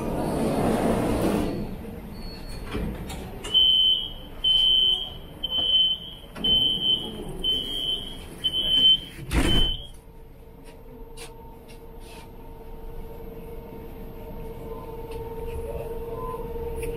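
Metro train doors' closing warning: seven evenly spaced high beeps, about one a second, then the doors thud shut. Just after, a steady hum from the train's running gear sets in as it pulls away.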